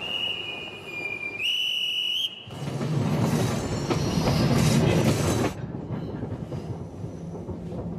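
A high whistle sounds and steps up to a higher note about a second and a half in, then stops; a train then rumbles as it pulls out, loud for about three seconds before easing to a softer steady rumble.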